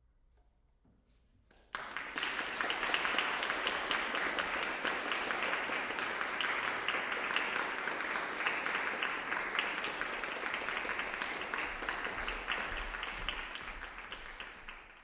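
Audience applause after a performance: a quiet hush for the first second or so, then many people clapping, starting suddenly and holding steady before tapering off near the end.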